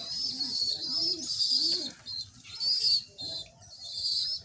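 Domestic pigeons cooing: three low, arched coos in the first two seconds. Behind them runs louder high-pitched chirping that comes and goes in short bursts.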